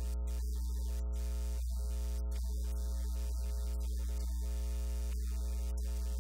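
Steady low electrical mains hum with a ladder of overtones, unchanging in level; no speech comes through.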